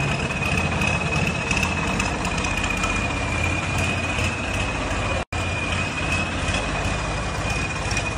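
Swaraj 855 FE tractor's three-cylinder diesel engine running at low revs while the tractor is manoeuvred slowly, with a steady high-pitched whistle running along with it. The sound cuts out for an instant about five seconds in.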